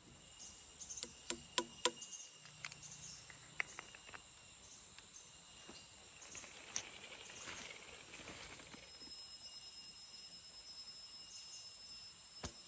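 Steady high-pitched insect chorus, with a handful of sharp clicks: four in quick succession about a second in, then a few single ones later.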